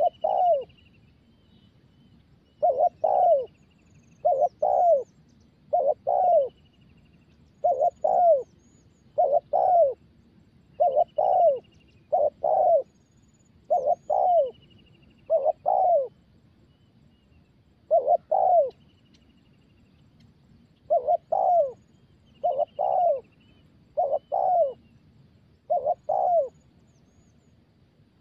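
Spotted dove cooing: low two-note coos repeated about every one and a half seconds, with two longer pauses past the middle. Faint high chirps of small birds sound in the background.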